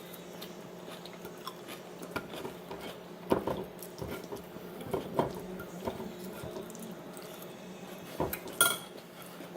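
Plates and utensils clinking and knocking now and then while people eat, in scattered separate taps, the loudest near the end.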